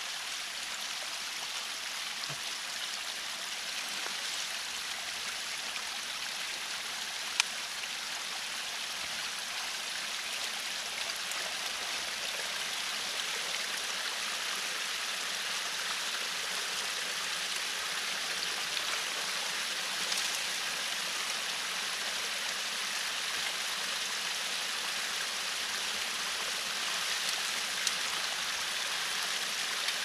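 Drainage-ditch water rushing steadily through a culvert as a beaver-dam clog starts to break loose, the flow growing slightly louder over the stretch. A few sharp ticks stand out, the loudest about seven seconds in.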